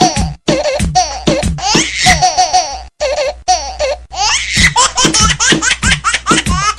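Baby-laughter ringtone: a baby laughing in quick rhythmic bursts, the same stretch of laughter repeating in a loop over music.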